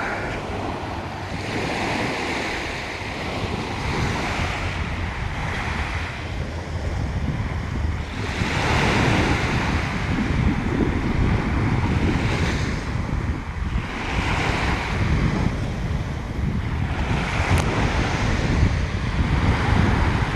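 Ocean waves breaking and washing on the shore, surging every few seconds, with wind buffeting the microphone.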